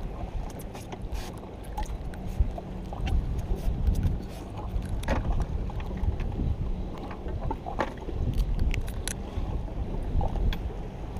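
Wind rumbling on the microphone over the sound of a small boat rocking on choppy water, with scattered light knocks and clicks.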